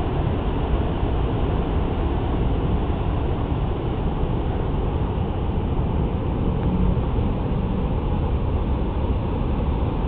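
Steady low roar of heavy surf breaking on the shore, mixed with wind on the microphone.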